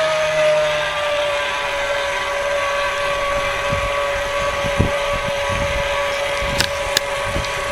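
Motor of a radio-controlled model boat running steadily on the water, a high whine that settles slightly lower in pitch early on. Low thuds of wind buffet the microphone.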